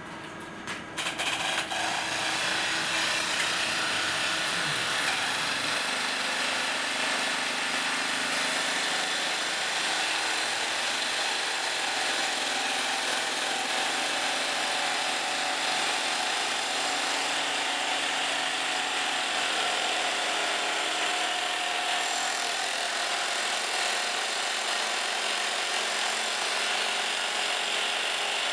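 Twin-boom mining drill rig's two hydraulic rock drills starting about a second in and then drilling steadily into the rock face.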